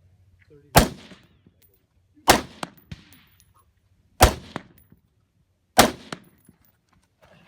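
Four rifle shots, fired at an unhurried pace about one and a half to two seconds apart, each followed by a short echo.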